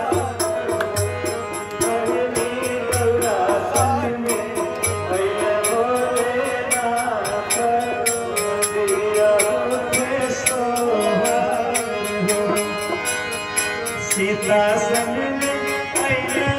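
A man singing a Hindu devotional song to his own harmonium, the reeds holding sustained chords under the voice. Percussion keeps a fast, steady beat, with low drum thumps in the first few seconds.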